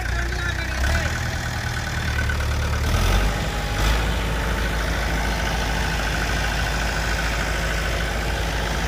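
Mahindra 475 tractor's diesel engine running steadily while its hydraulics tip the trailer body up to unload. The engine note shifts lower about three seconds in, with a brief knock just before four seconds.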